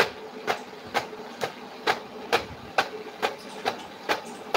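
Steady, even mechanical ticking, a sharp click about twice a second, over a faint steady hum.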